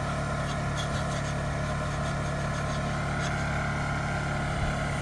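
Portable generator engine running steadily at constant speed, with a few faint metallic clicks over it.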